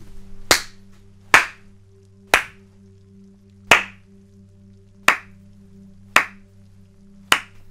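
One person clapping slowly: seven single claps, roughly a second apart, over a steady low hum.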